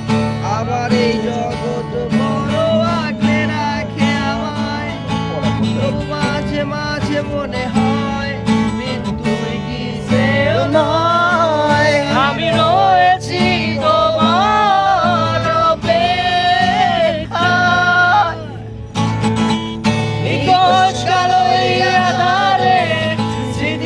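A man singing a song while strumming a Yamaha acoustic guitar. The voice grows stronger about ten seconds in, and both voice and guitar pause briefly about five seconds before the end.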